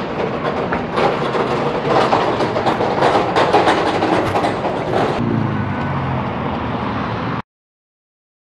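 Loud outdoor clatter and rumble, with a low engine-like hum over the last couple of seconds, cutting off abruptly about seven and a half seconds in.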